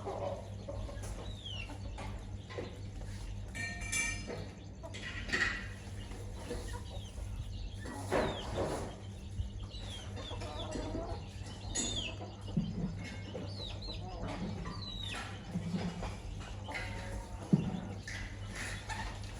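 A hen and her chicks feeding: scattered clucks mixed with short, high, falling chick peeps, over a steady low hum.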